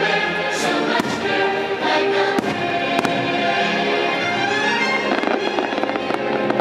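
Fireworks bursting, a few sharp bangs with the clearest about one, two and a half and three seconds in, over loud orchestral and choral show music.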